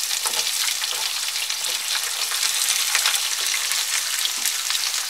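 Chopped onions sizzling and crackling steadily in hot oil with cumin seeds in a frying pan, just after being dropped in.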